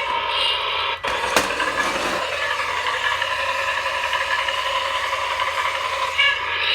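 Battery-powered toy Caterpillar backhoe running, giving a steady mechanical rattle with a sharp click about a second and a half in.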